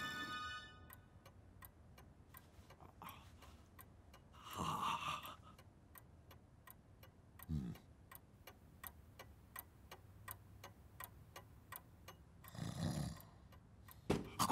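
A clock ticking steadily in a quiet room, with a few snores: a long snoring breath about five seconds in, a short one a little later, and another near the end.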